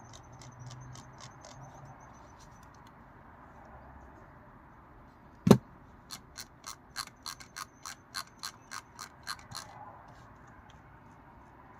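Razer DeathAdder V2 Pro mouse scroll wheel being turned, ticking through its notches: faint ticks over the first few seconds, a single sharp click about five and a half seconds in, then a run of louder, evenly spaced notch clicks, about four a second, stopping near ten seconds.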